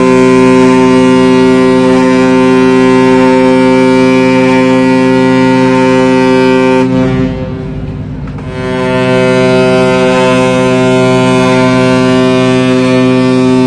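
The ship's horn of the passenger ship KM Tatamailau sounding two long, steady, deep blasts as the ship gets under way. The first lasts about seven seconds; the second starts after a short break.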